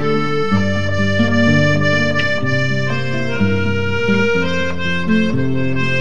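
Instrumental background music: held chords over bass notes, changing about once a second.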